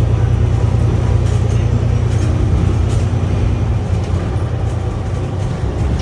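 Alexander Dennis Enviro500 MMC double-decker bus heard from the upper deck while under way: a steady, loud low drone of engine and road noise, easing a little about four seconds in.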